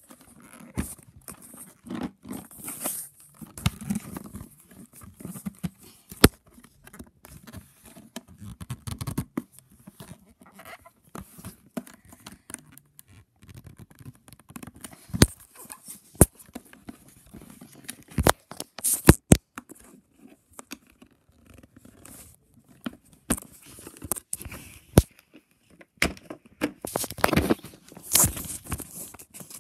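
Packaging being handled and opened, with tearing and crinkling rustles and scattered sharp knocks and taps as the box is moved about.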